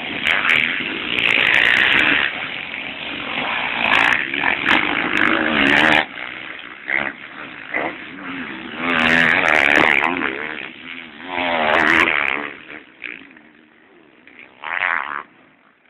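Motocross bikes racing past, their engines revving hard with pitch rising and falling as riders open and close the throttle. The sound swells loudly as bikes pass several times, then drops away to a quieter stretch near the end.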